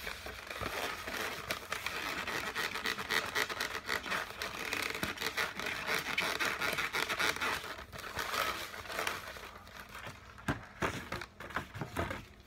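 Latex modelling balloons squeaking and rubbing against each other and against hands as they are twisted and worked into a balloon animal. The squeaks and scrapes come thick and fast, thin out after about eight seconds, and a few sharp squeaks stand out near the end.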